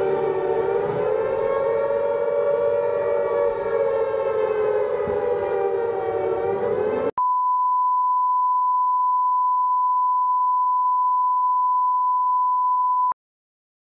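A loud, sustained drone of several slowly wavering pitches, siren-like, cuts off about seven seconds in. After a brief gap, a steady single-pitch broadcast test tone, the reference tone that goes with TV colour bars, sounds for about six seconds and stops abruptly.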